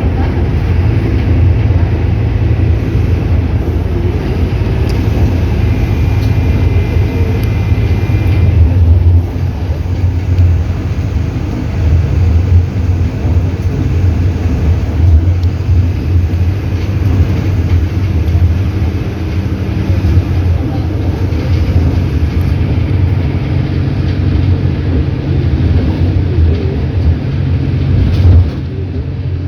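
Bus engine and road noise heard from inside the cabin: a steady, loud low rumble, dipping briefly a couple of times.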